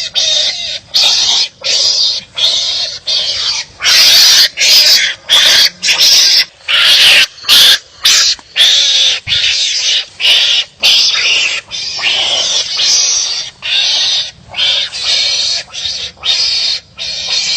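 Wild animals barking at each other in a fight: a fast, unbroken series of short, harsh, rasping barks, about one to two a second.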